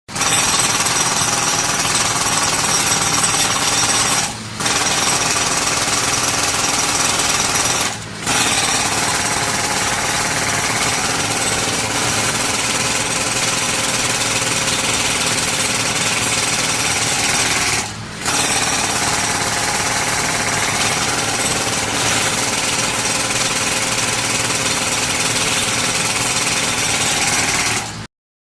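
Pneumatic jackhammer hammering continuously, with three brief pauses: about four and a half, eight and eighteen seconds in. It cuts off suddenly near the end.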